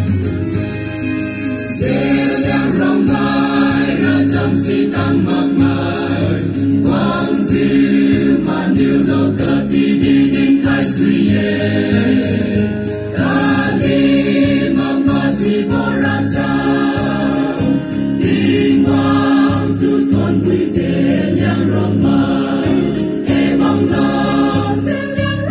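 Mixed choir of women's and men's voices singing a song together in harmony, without a break.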